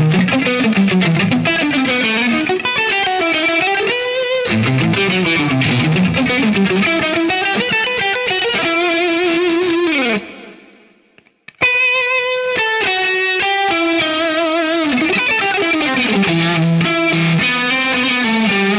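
Jackson Performer PS-2 electric guitar played through a software amp simulator with distortion: a neoclassical lead melody with wide vibrato on held notes. It stops about ten seconds in, goes quiet for about a second, and then starts again.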